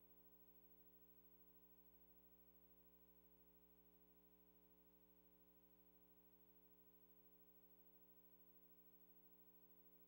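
Near silence: a faint, steady hum with no other sound.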